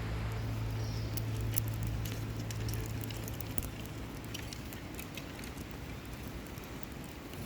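Twig campfire burning well, with irregular sharp crackles and pops over a soft rushing bed. A steady low hum underneath fades out about four seconds in.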